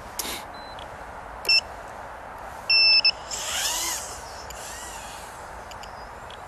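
A few short electronic beeps: one brief beep, then a longer one followed by a quick chirp. Then a Tinyhawk 2 micro drone's small brushless motors whine up and back down in pitch twice, a throttle burst and a smaller one.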